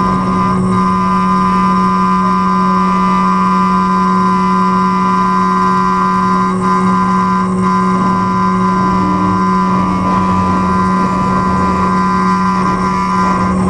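CNC engraving machine running steadily while engraving a metal mould, a constant machine hum and whine held at several unchanging pitches.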